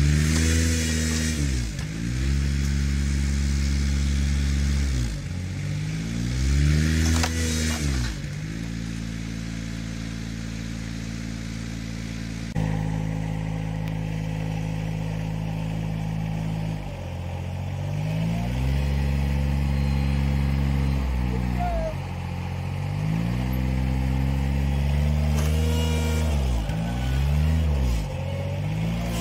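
Vehicle engine revving up and dropping back over and over under load, pulling on a line hooked to the barn wall to drag the wall down.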